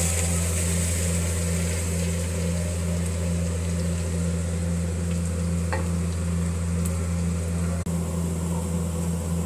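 Chopped onions sizzling in a pot as hot fish-frying oil is poured over them. The sizzle is brightest in the first couple of seconds, and the onions are stirred near the end. A steady low hum runs underneath.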